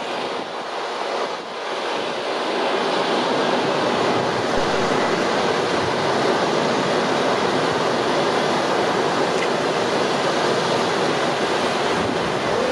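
Several firework ground fountains spraying sparks with a steady hiss, growing louder about two seconds in.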